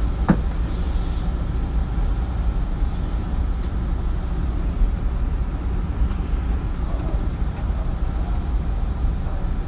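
Interior running noise of a Hanshin 9000-series electric train: a steady low rumble of wheels on rail and running gear. Two short bursts of air hiss come a little under a second in and again about three seconds in.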